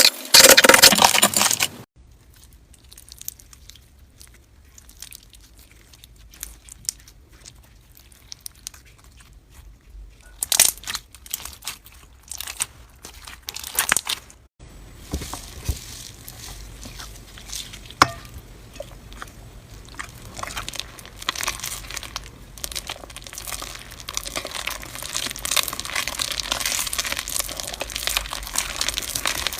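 Slime being squeezed and stretched by hand, making crinkling, crackling and crunching sounds. The loudest crackling cuts off suddenly just before two seconds in. Softer crackles follow, with a few louder bursts in the middle and steady crackling that builds toward the end.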